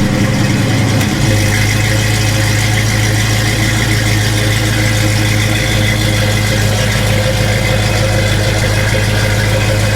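Restored 1965 Ford Mustang's engine running at an even, steady note. It settles into a strong, steady low hum about a second in.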